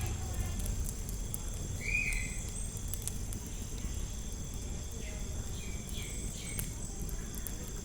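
Outdoor ambience of insects trilling steadily at a high pitch over a low rumble, with a short chirp about two seconds in and a few fainter calls later.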